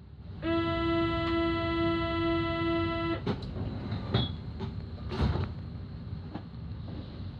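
A single steady horn-like note, held for about two and a half seconds over a continuous low rumble, then a few sharp knocks while the rumble carries on.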